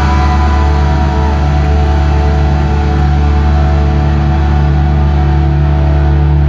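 Rock band playing live in an arena, recorded loud from the crowd: a sustained, droning chord with heavy low bass and a few brief sliding high tones on top.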